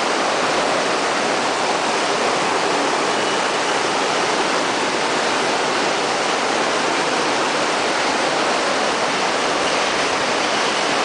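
Heavy tropical downpour: a dense, steady, loud roar of rain pouring down without let-up.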